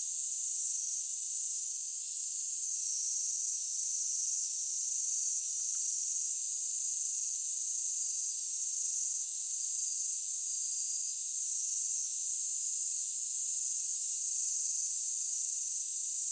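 Steady, high-pitched chorus of insects such as crickets, droning without a break.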